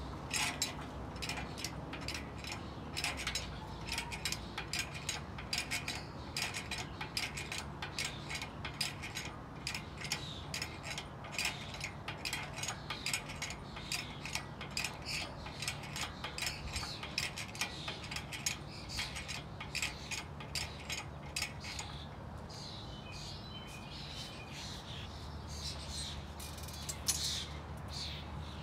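Rapid, irregular ratchet-like mechanical clicking that runs for about twenty seconds and then stops. Birds chirp through the last few seconds.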